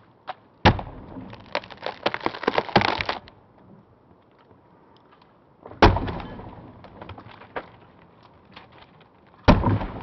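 Axe chopping into a small standing tree trunk: three sharp blows, the first less than a second in, the second about six seconds in and the third just before the end, each with a short ringing tail. Between the first two blows comes a dense run of crackling ticks lasting about a second and a half.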